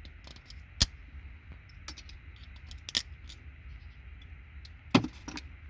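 Scattered sharp clicks and snaps of plastic and metal as RJ45 jacks are pried and pulled off a network patch panel, the loudest just under a second in, about three seconds in and about five seconds in, over a low steady hum.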